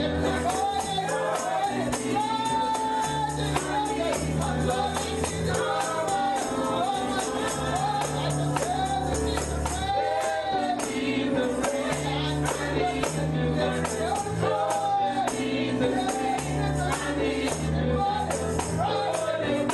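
Gospel music: voices singing a melody over a sustained bass line, with a tambourine keeping a steady, fast beat throughout.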